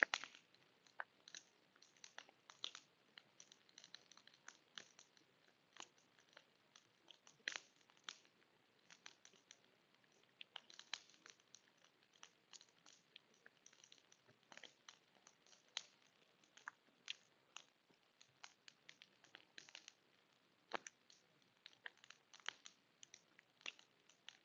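Wood fire crackling: irregular snaps and pops over a faint hiss, the sharpest pops at the very start and about seven and a half seconds in.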